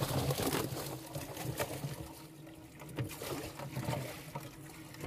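Water splashing and sloshing in a bass boat's livewell as fish are handled and swapped out, with scattered knocks, over a steady low hum.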